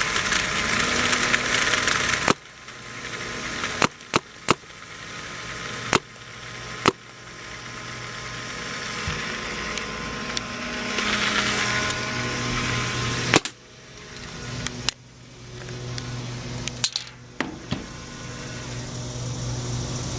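PM8 paintball marker firing single shots in semi-automatic: about ten sharp pops, some alone and some in quick runs of two or three, over a steady low background hum.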